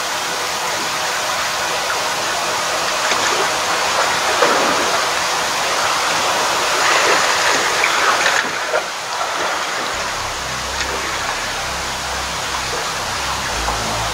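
Seawater washing and gurgling around concrete breakwater tetrapods: a steady rushing noise that swells for a few seconds around the middle. Background music with low notes comes back in near the end.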